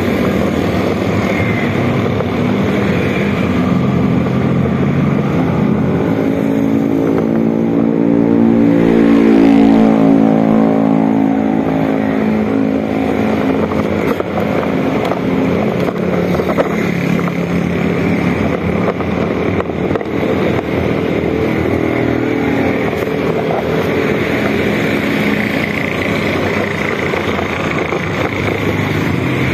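Motorcycle engine running while riding. The note climbs and is loudest about ten seconds in, then settles back to a steady run.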